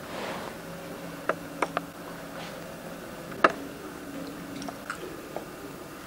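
Quiet room tone with a faint steady hum, broken by a few short, sharp clicks and taps, the loudest about three and a half seconds in.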